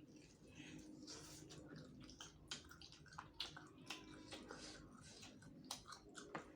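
Faint, wet chewing and lip-smacking of a person eating spicy chicken heads, a scatter of sharp little clicks and squelches.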